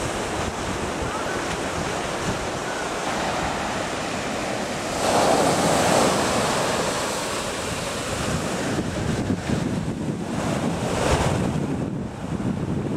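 Sea surf breaking on a sandy beach, a continuous wash of waves with one louder crash about five seconds in and further surges later. Wind buffets the microphone throughout.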